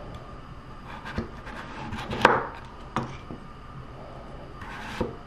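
A kitchen knife cutting through a peeled celeriac root and striking a wooden end-grain cutting board: about four separate cuts, the second the loudest with a short crunch.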